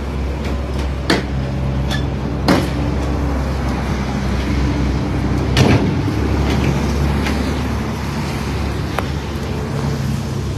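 Steady low hum of an idling engine. A few knocks sound, and a louder slam comes about five and a half seconds in as the pickup's rear canopy door is swung shut.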